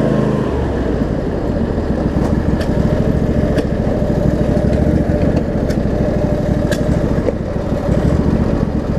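Craftsman DLT riding mower's 25 hp Briggs & Stratton V-twin engine running steadily, its note dropping to a lower, slower pitch about half a second in.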